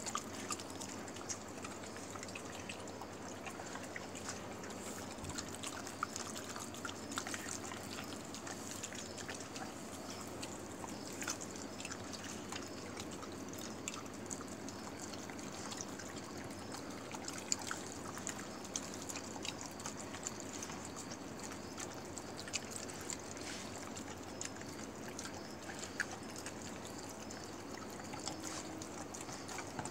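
Stray dog eating wet rice and broth from a tray: a steady run of wet lapping and smacking made up of many small clicks.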